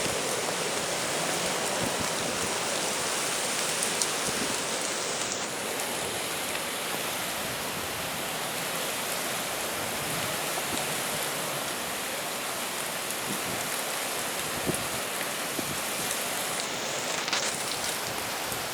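Steady, even rush of stormy weather as a typhoon approaches, with rain and rough sea blending into one continuous noise.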